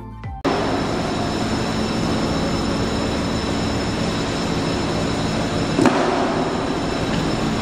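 Steady machinery noise of a fish market hall, a constant hum with thin high whines, starting suddenly about half a second in, with one sharp knock about six seconds in.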